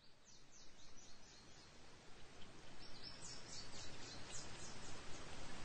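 A small bird chirping in two quick runs of short high notes, about six a second, over a steady outdoor background noise that grows louder.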